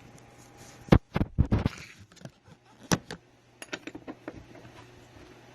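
Stainless steel manual coffee grinder being put back together: a string of sharp metal clinks and knocks, busiest about a second in and again around three to four seconds.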